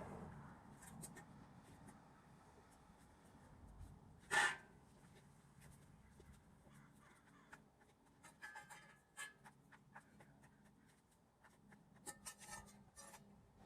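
Metal frame parts and hardware being handled and set down on a surface: faint rustling with scattered light clicks, and one sharper knock about four seconds in.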